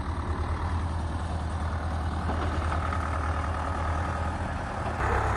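Diesel farm tractor engine running steadily while its front loader raises a round hay bale on the bale spear. A faint steady whine comes in the middle of the lift, and the engine gets louder near the end.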